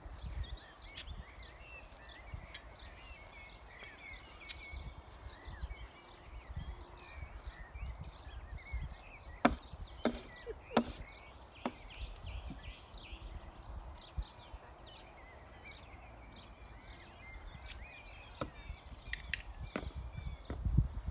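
A pony's hooves knocking a few times on a wooden marker board about halfway through, sharp and loud against the outdoor background. Birds chirp throughout over a low wind rumble on the microphone.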